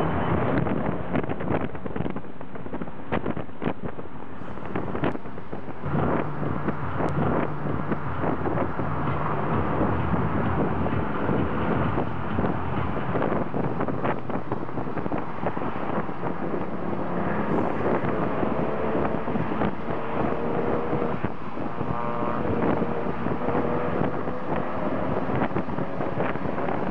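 A car engine running under steady road and wind noise, heard from inside a moving car at highway speed. The engine note drifts slowly up and down, with wind buffeting on the microphone and occasional short knocks.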